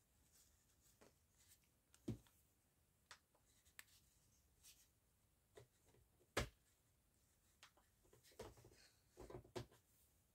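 Near silence, with faint rustles and light clicks of hands folding and handling satin ribbon. The sharpest click comes about six seconds in, smaller ones about two seconds in, and a few soft rustles near the end.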